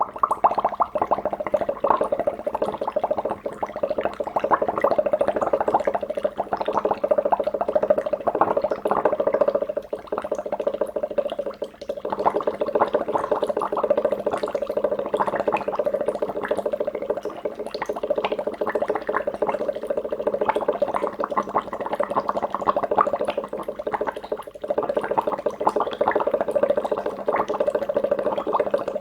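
Water bubbling: a dense, continuous stream of small bubbles gurgling and popping, easing off briefly twice before carrying on.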